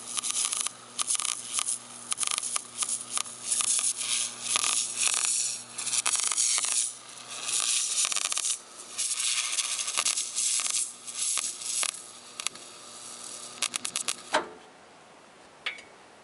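Wire-feed arc welder crackling and sizzling as it welds a steel exhaust pipe to a muffler, in runs of a second or two with short pauses, over a steady low hum from the welder. The welding stops about fourteen seconds in.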